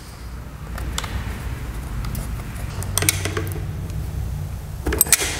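Small metal clicks and scrapes of a bolt and nut being fitted and tightened on a lawn-mower battery's negative terminal, a few sharp clicks spaced about two seconds apart, over a steady low hum.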